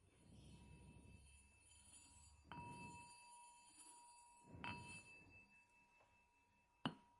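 A small metal bell struck twice, about two seconds apart, faint, each strike ringing on in a clear high tone. A sharp click comes just before the end.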